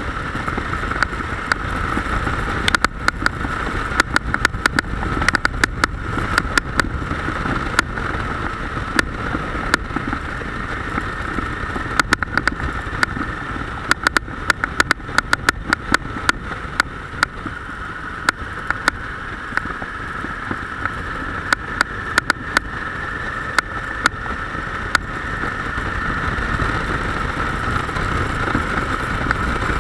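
Motorcycle running on the road, heard from on board: a steady mix of engine and rushing wind, with many sharp clicks scattered through it. It gets louder over the last few seconds.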